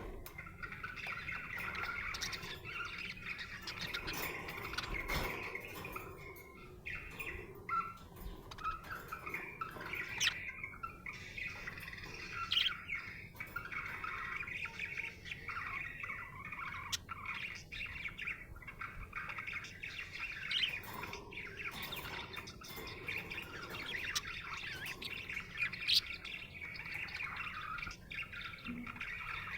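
Budgerigar chirping and warbling: continuous busy chatter with frequent short, sharp chirps and squawks breaking through.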